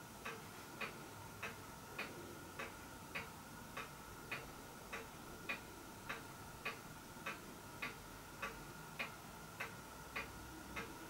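A clock ticking faintly and evenly, a little under two ticks a second, over a faint steady high hum.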